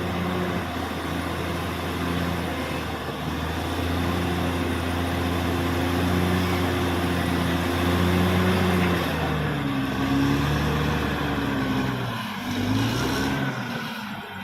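Caterpillar D6R XL bulldozer's diesel engine running steadily, its pitch dropping and rising again in the last few seconds.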